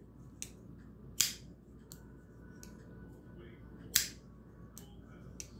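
Buck Reactor 702 folding knife's blade being snapped open and shut by hand: two sharp clicks, about a second in and about four seconds in, with several fainter clicks between.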